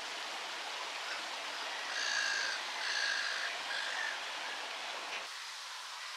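Fountain spray splashing steadily into a pond, with a bird calling four or five times in short high notes about two to four seconds in. The water sound drops away near the end.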